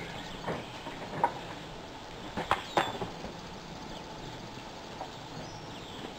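Outdoor ambience with a few short knocks and clicks, the loudest a quick cluster about two and a half seconds in, and a faint high chirp or two.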